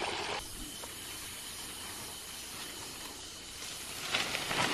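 A rushing noise cuts off abruptly less than half a second in, leaving a steady hiss of night ambience. About four seconds in, leaves and branches rustle as they brush past, ending in a sharp click.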